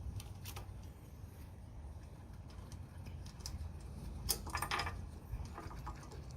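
Scattered light clicks and rattles over a low steady rumble, with a denser cluster of clicks about four seconds in.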